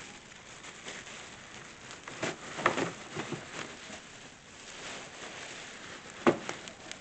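Cardboard box packaging being handled and pulled apart: rustling and scraping, with a cluster of knocks between two and four seconds in and one sharp knock about six seconds in.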